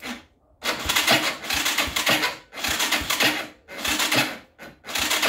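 Bashan 200 cc ATV engine cranked by its electric starter in about five short bursts, turning over without catching.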